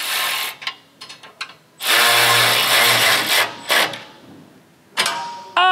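Cordless power ratchet with a 13 mm socket running bolts into a steel bash plate in short bursts, the longest about two seconds in and lasting about a second and a half. Near the end a man cries out in pain as the tool strikes his hand.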